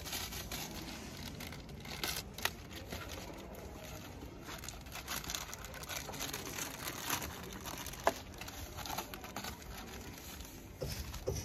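A plastic salt packet crinkling and rustling as it is handled and salt is tipped out of it, with a couple of sharp clicks.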